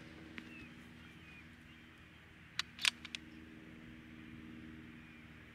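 A few sharp mechanical clicks in quick succession about two and a half to three seconds in, over a steady low hum.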